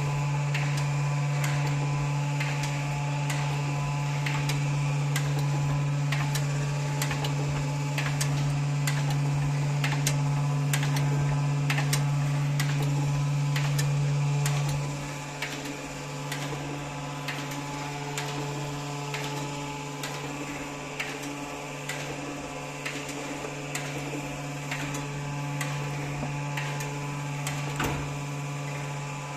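TOS BRH 20 hydraulic machine running with a steady low hum, after its hydraulics were repaired and upgraded. Frequent sharp clicks sound over the hum. About halfway through, the hum becomes noticeably quieter.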